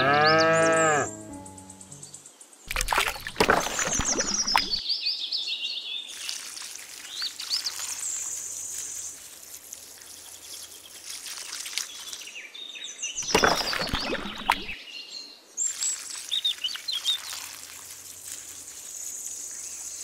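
A cow moos in the first second. Birds chirp through most of what follows, and water pours from a small watering can twice, about 3 s in and about 13 s in.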